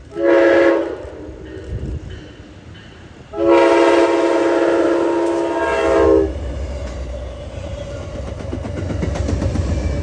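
Amtrak P42DC diesel locomotive horn, several notes sounding together: a short blast, then a long blast of about three seconds, the end of a grade-crossing signal. After it comes the low rumble of the approaching train, growing louder.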